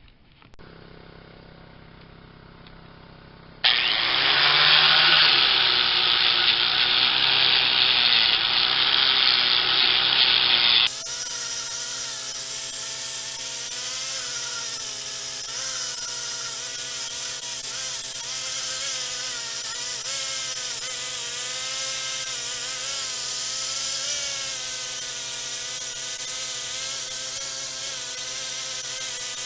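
Handheld power tool scrubbing carbon deposits off a cast cylinder head, starting about four seconds in after a faint hum. Its motor whine wavers in pitch as it bears down on the metal.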